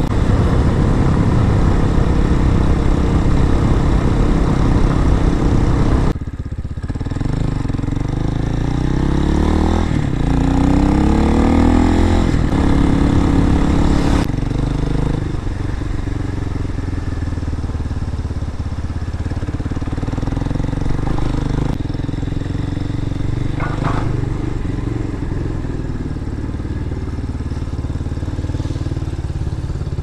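2023 RPS Hawk-X 250 dual-sport motorcycle's single-cylinder engine running under way, heard from the rider's seat. About six seconds in the engine note drops off, then climbs in pitch as the bike accelerates, and settles into a steady cruise from about fifteen seconds.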